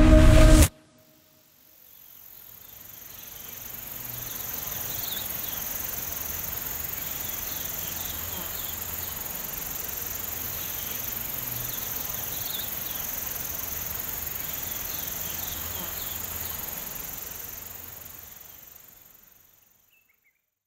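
A summer insect chorus, a steady high-pitched buzzing with a few short chirps mixed in, fading in after music cuts off and fading out near the end.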